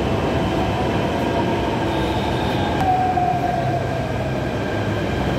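Delhi Metro electric train pulling into the platform and braking to a stop. Its whine falls slowly in pitch over a steady rumble as it slows.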